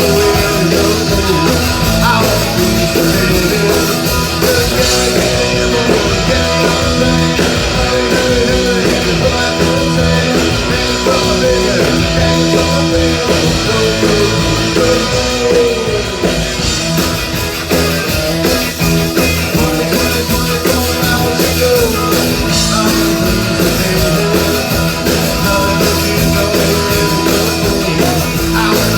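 Live band playing rock music, steady and loud, with sung vocals.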